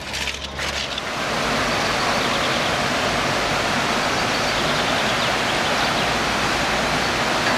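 Shallow stream rushing over rocks and small riffles: a steady, even rush of water that sets in about a second in.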